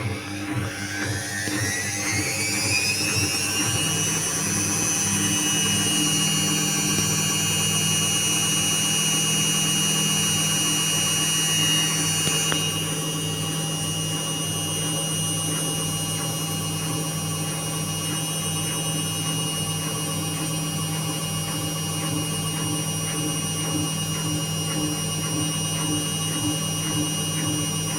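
Indesit WIU81 washing machine's drum motor rising in pitch over the first few seconds as the drum spins up, then holding a steady high whine over a low hum at spin speed.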